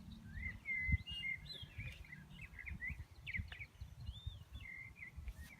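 Many short, high-pitched chirps and peeps that rise and fall, scattered irregularly, over soft low bumps.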